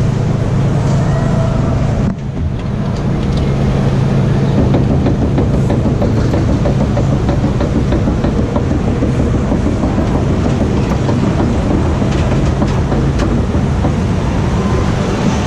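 Water coaster boat being hauled up the lift hill, with a steady rattling clatter from the lift mechanism under a low, steady hum that fades about two-thirds of the way through.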